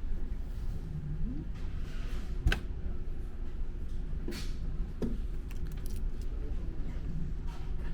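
Steady low rumble of a ferry under way, with a few sharp clinks and knocks of tableware, the loudest about two and a half seconds in.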